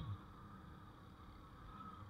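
Faint, muffled motorbike riding noise: a steady low wind and road rumble with a faint wavering whine, and one low thump right at the start.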